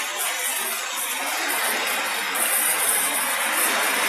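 Heavy rain pouring in strong wind: a steady, dense hiss with no let-up.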